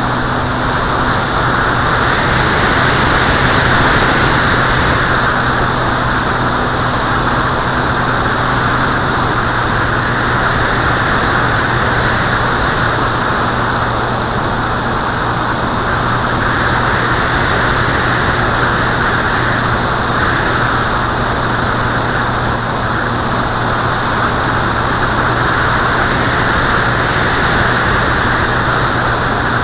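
Steady drone of a small aircraft's propeller motor, with wind rushing over an onboard camera's microphone that swells and eases every few seconds.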